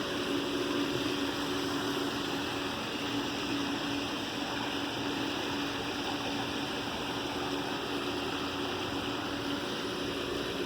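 Pool pump and sand filter running steadily: a continuous rush of water with a faint motor hum underneath.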